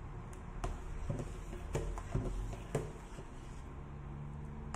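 Metal ladle stirring thick soup in a stainless steel pot, knocking against the pot's side about every half second for the first few seconds, over a faint steady low hum.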